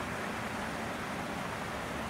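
Steady outdoor background noise, an even hiss with a low rumble and no distinct events.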